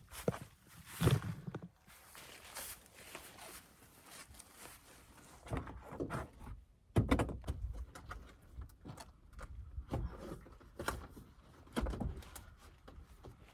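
Irregular knocks, thuds and rustling of someone handling bedding and gear inside a car, with a louder thud about seven seconds in.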